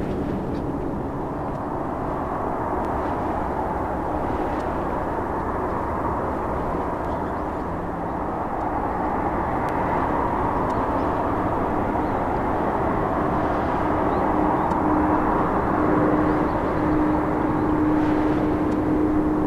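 Boeing 747-400D's four jet engines running as a steady rushing drone with a hum that grows stronger in the last few seconds, the overall level creeping up slightly.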